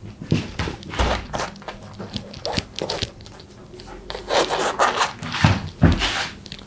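Fingers twisting and pulling through hair worked with matte paste, a dry, crackly rustling and scraping in irregular strokes. There are a couple of low bumps, about a second in and again near the end.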